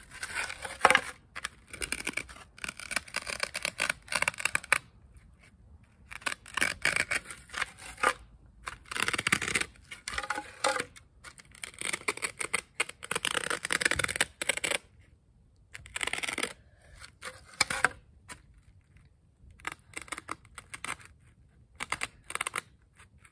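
Drawing strokes scratching across a foam board, coming in quick bursts with short pauses between them.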